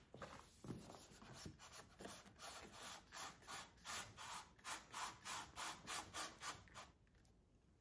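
Faint, repeated rubbing strokes, irregular at first and then steady at about three a second, stopping shortly before the end.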